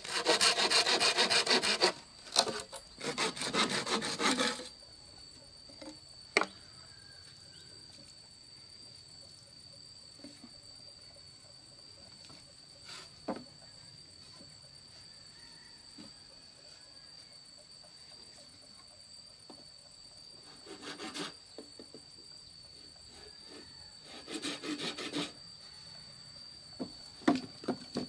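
Folding pruning saw cutting through a dry bamboo pole in rapid rasping strokes, stopping about four and a half seconds in. Then a quieter stretch with a steady high-pitched buzz and a few sharp hollow knocks of bamboo poles being handled, and a short bout of sawing near the end.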